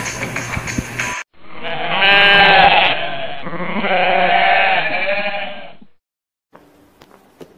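Music breaks off about a second in, then two long wavering bleats follow, each about two seconds long.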